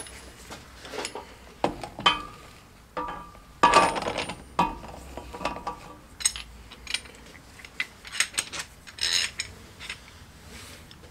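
Metal sockets and tools being handled, clinking and knocking irregularly, with a few of the knocks ringing briefly.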